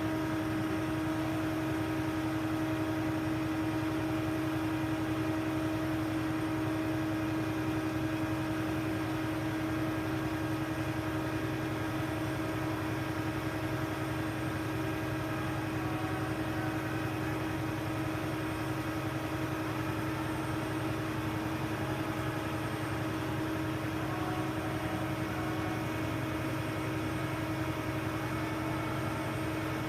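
A crane's engine running at a steady speed, a constant hum over a low rumble that does not change.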